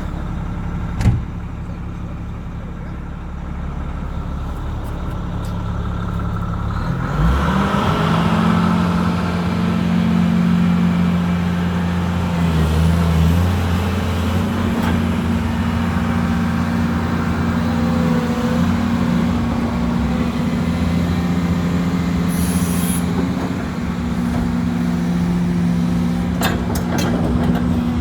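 Hyundai Robex 500 excavator's diesel engine idling, then rising in speed about seven seconds in and running steadily at the higher speed. A single sharp knock comes about a second in, a brief hiss comes later, and a few clicks come near the end.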